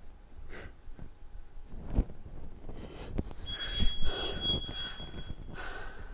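A man breathing hard and blowing out forcefully as he comes out of a prone arch hold and pushes up off the mat, with a few dull thumps of his body and hands on the mat. A steady high-pitched tone sounds for about two seconds midway.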